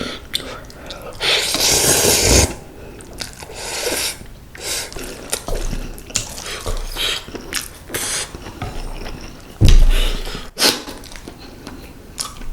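Close-miked eating: wet slurping and chewing of malatang instant ramen noodles in irregular bursts, the longest about a second and a half in and another loud one about ten seconds in.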